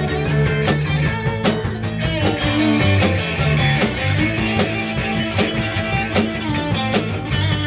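Rock band playing: electric guitars over bass and a drum kit, with a steady beat on the cymbals about three strikes a second and bending guitar lines.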